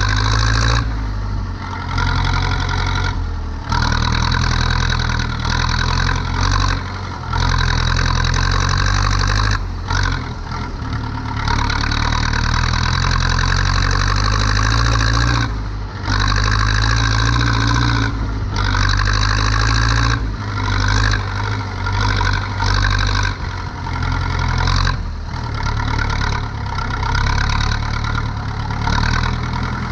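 Zetor 7245 tractor's four-cylinder diesel engine running steadily while turning hay with a tedder. A loud rushing noise rides over the engine and cuts out briefly every few seconds.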